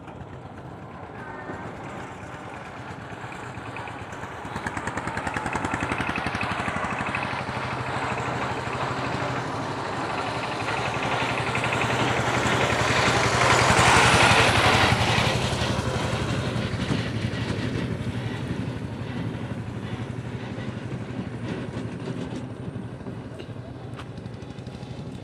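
A motor vehicle passing by: its engine and road noise grow louder to a peak about halfway through, then fade away, over a steady low hum.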